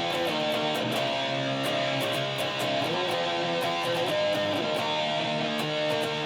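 Guitar playing a heavy metal and rock medley passage: held chords that slide to new pitches every second or two.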